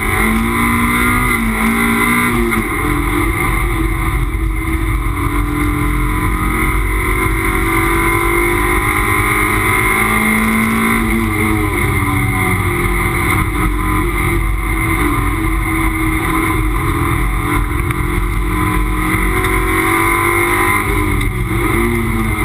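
Toyota MR2 race car's engine heard from inside the cabin at racing speed. The engine note climbs in long sweeps as it accelerates, then drops sharply a few times as the car lifts and slows for corners.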